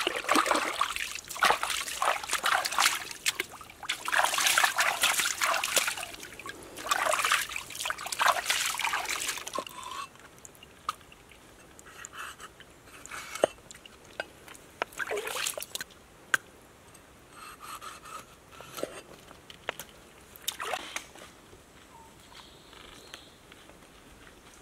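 Water splashing and sloshing in rapid bursts as a gutted fish is rinsed and rubbed clean by hand, for about the first ten seconds. After that come quieter, scattered short scrapes and knocks of a large knife drawn over the fish's skin on a wooden cutting board.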